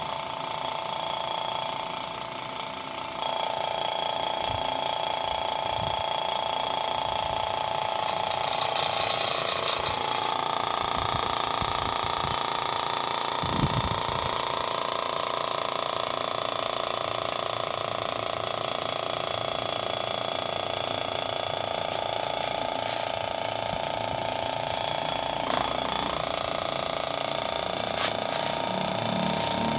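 A/C vacuum pump running steadily on the car's air-conditioning system, its hose drawing a vacuum. About eight seconds in there is a rush of air lasting a couple of seconds, with the pump's tone sagging just after: a hose is opened to the vacuum so oil is sucked in.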